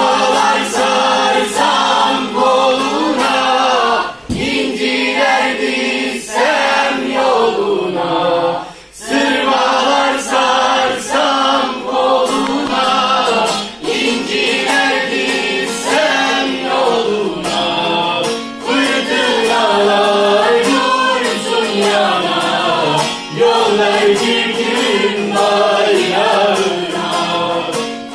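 A group of men singing together, with a bağlama (long-necked Turkish lute) playing along.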